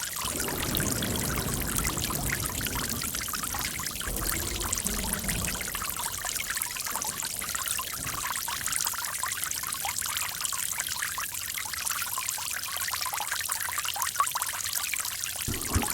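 Water trickling and pouring in a steady, continuous flow, with a fuller, deeper gurgle in the first few seconds and again just at the end.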